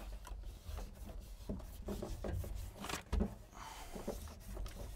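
A foil-faced sound deadener sheet being pressed and formed by hand against a truck cab's bare sheet-metal rear wall: crinkling, rubbing and light taps, with one louder thump a little after three seconds in.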